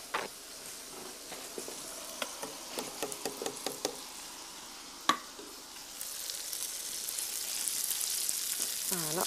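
A metal ladle stirring fish soup in a stainless-steel pot, with light clinks against the pot and one sharper knock about five seconds in. From about six seconds in, a steady sizzle of fish fillets frying in oil in a pan.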